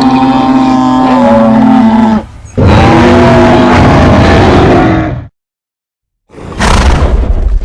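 Animated monster's roar sound effect: two long, loud roars with a wavering pitch, then after a second of dead silence a harsher, rougher roar.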